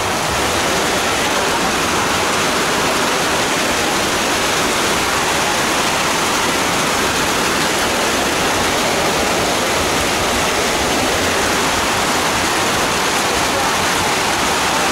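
Rain falling steadily: a loud, even hiss with no breaks.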